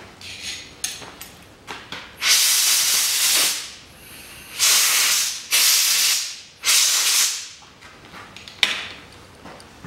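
Four bursts of hissing spray from a nozzle, each about a second long, with a few light clicks before and after.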